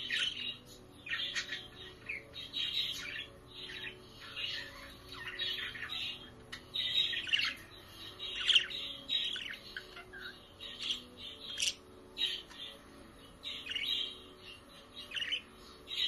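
Budgerigars chirping and chattering in short, rapid, overlapping bursts of warbling chirps that keep coming throughout, the loudest a little past the middle.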